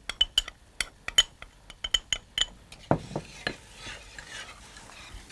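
Metal spoon stirring corn flour and water into a slurry in a small porcelain bowl. Rapid clinks of the spoon against the bowl come first, with one duller knock about three seconds in, then a softer, continuous scraping swirl.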